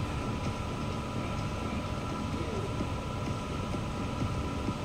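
Steady low rumble of a large sports hall's ventilation, with a faint steady hum over it.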